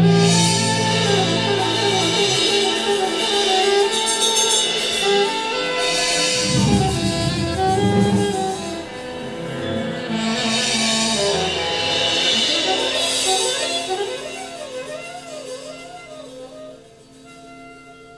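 Instrumental music with no singing: a wavering melody line over sustained chords, growing quieter over the last few seconds.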